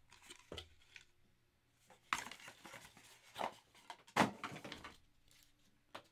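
Trading-card box and its plastic packaging being handled on a table: a few knocks and rustles, the loudest knock about four seconds in.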